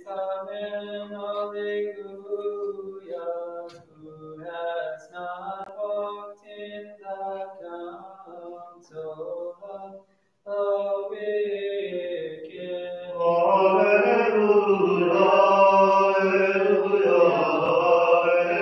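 Byzantine liturgical chant sung in English at Vespers. A voice chants phrase by phrase, stops briefly about ten seconds in, then the singing resumes and becomes louder and fuller from about thirteen seconds.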